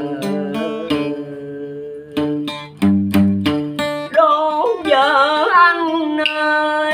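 Acoustic guitar plucked in single notes and chords; from about four seconds in a man's voice joins it, singing long, bending held notes in Vietnamese ca cổ style.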